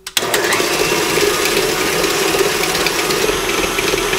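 KitchenAid tilt-head stand mixer switched on and running steadily, its flat beater creaming shortening and sugar in the stainless steel bowl.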